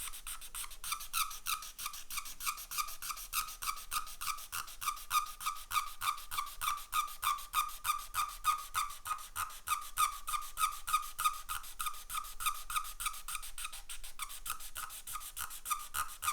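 Rapid, evenly repeated squeaking, about five squeaks a second, each at the same pitch, like something rubbing back and forth.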